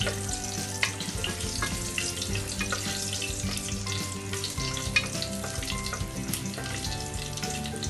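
Whole spices sizzling in hot oil in an aluminium pressure cooker, stirred with a wooden spatula that scrapes and taps against the pot.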